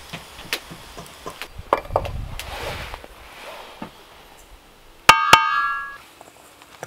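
Sharp crackles of a wood fire in a clay oven, then a metal spoon strikes a stainless steel mixing bowl twice about five seconds in, and the bowl rings with a clear metallic tone that dies away within about a second.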